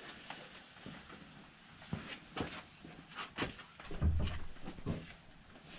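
Scattered light knocks and clicks of tools being handled, with one duller, deeper thump about four seconds in.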